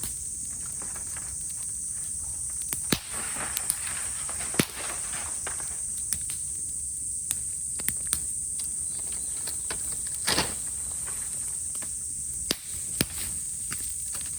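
Cicadas droning steadily in a high, continuous buzz, with irregular sharp crackles and pops from bamboo burning in a bonfire.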